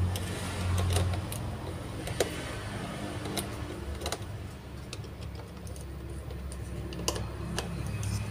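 Small clicks and taps of plastic and metal parts being handled and snapped together as a drive motor and gearbox are fitted to a miniature RC truck chassis, heard over a low hum that drops away about a second in.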